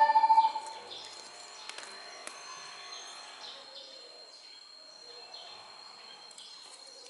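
Background music cuts off about half a second in, leaving faint handling noise: scattered small clicks and rustles of fingers working a stack of little paper sticker cards, over a thin steady high whine.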